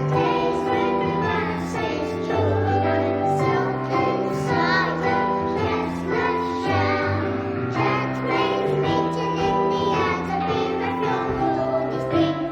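Young children singing a song together over an instrumental accompaniment.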